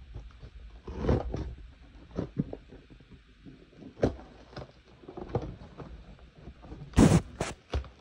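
Cardboard box being handled while a key is worked at its packing tape: irregular knocks and scrapes, with a few sharp, loud rasps about seven seconds in.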